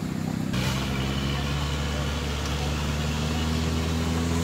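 Suzuki Jimny's engine running hard under load as the 4x4 pushes through deep mud. It gets louder about half a second in, then holds steady with its pitch creeping slightly up.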